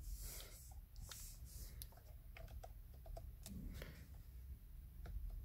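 Faint, irregular plastic clicks of a Skoda Superb's steering-column stalk and steering-wheel controls being worked by hand.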